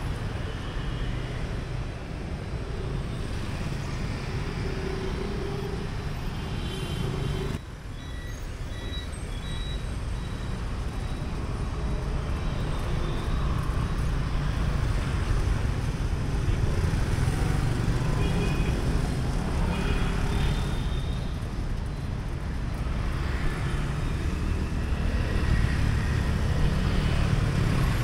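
City street traffic around a pedalled cyclo: motorbike and car engines passing close by over a steady hum of road noise, with a brief sudden drop in level about seven seconds in.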